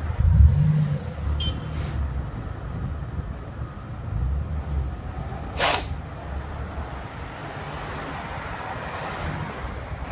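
Wind rumbling over the microphone of a camera riding on a moving bicycle, over city street traffic, with a short sharp rattle about halfway through.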